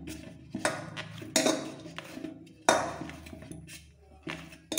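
Soft wheat-flour dough being kneaded by hand in a stainless-steel bowl: a quiet rubbing and pressing against the metal, broken by four sharp knocks of the bowl.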